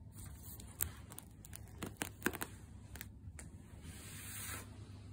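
A tabby kitten scampering on a wooden floor: scattered light ticks and taps from its paws and claws, bunched together about two seconds in, then a short rustle about four seconds in.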